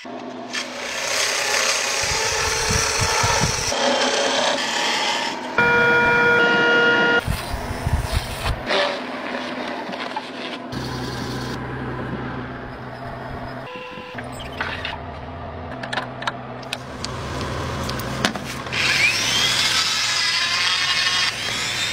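A run of short cuts of workshop power tools: a lathe-mounted cloth buffing wheel polishing a wooden bowl, with a steady motor hum, then a handheld rotary tool whose whine slides up and down in pitch near the end.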